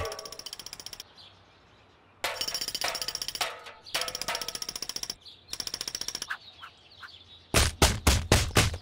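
Cartoon woodpecker drumming on a tree trunk in several fast rapid-fire bursts, after a single knock at the start. Near the end come five heavy blows about a quarter second apart as a man's head slams the woodpecker against the trunk.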